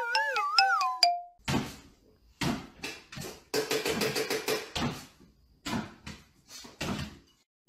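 A descending, warbling whistle sound effect that slides down in pitch and stops about a second and a half in, followed by a series of short knocks and clatters.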